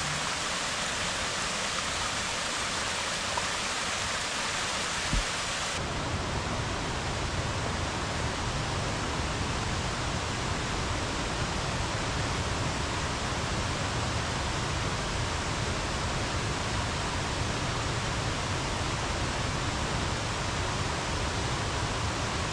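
Steady rush of stream water. About six seconds in the sound changes abruptly to a deeper, fuller rush.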